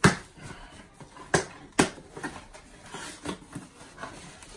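Cardboard shipping box being opened by hand: three sharp cracks of the flaps being pulled apart, the first right away and two more about a second and a half in, then softer rustling and ticks of cardboard and packing being handled.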